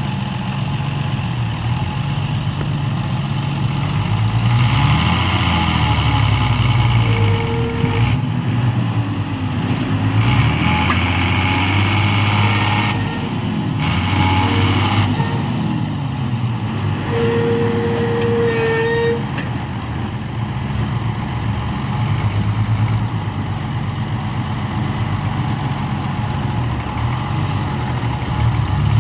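Two diesel tractor engines, a Zetor 12245 and a John Deere 6140R, running under heavy load and revving up and down several times as they strain to free the mud-stuck John Deere and its loaded potato trailers. A short steady tone sounds twice, briefly at about seven seconds and longer at about seventeen seconds.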